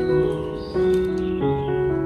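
Background instrumental music: held notes that change pitch about every half second.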